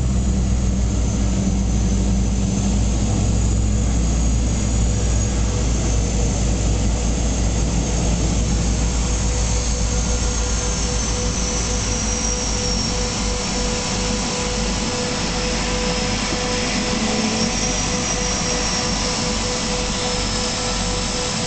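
Seaplane propeller engine noise heard from inside the cabin while on the water just after landing: a steady drone under a high whine that drifts slowly lower, the overall level easing off gradually.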